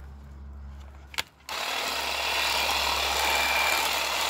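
Hyper Tough 20-volt cordless hedge trimmer switched on about a second and a half in after a single click, its reciprocating blades then running steadily.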